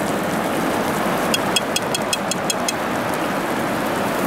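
Hot metal künefe tray hissing as it steams on a bed of crushed ice, a steady sizzle. A quick run of about ten light ticks comes partway through.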